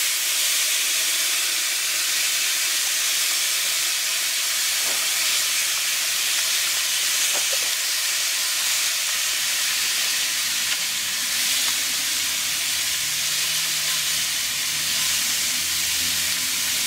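Steady sizzling hiss from whole chickens on the grate of a Weber Smokey Mountain smoker running hot at about 350°F as they are mopped with sauce.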